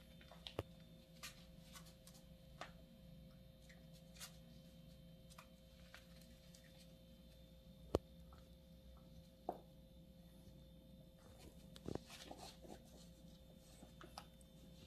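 Near silence: a faint steady room hum with scattered soft taps and rustles as an English Bulldog puppy moves about on a rug and noses at a toy and leash. One sharper click comes about eight seconds in.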